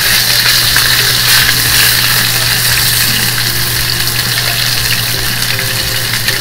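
A whole block of skinless pork belly searing in a dry, unoiled frying pan: a steady sizzle as its fat renders out and spatters. A steady low hum runs underneath.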